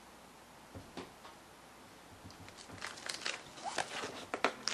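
Packing tape on a cardboard box being cut and scraped at, a run of short scratchy, crinkling strokes that starts a little past halfway and grows busier toward the end, after a couple of faint clicks.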